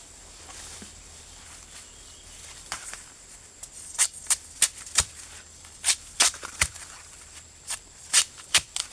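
Irregular sharp crackles and snaps of dry leaves and twigs, about a dozen, beginning about four seconds in.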